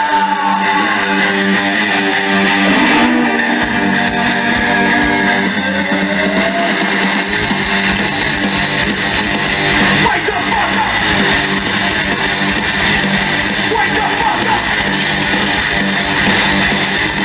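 Live hard-rock band playing an instrumental passage on electric guitars and bass guitar, loud and steady throughout.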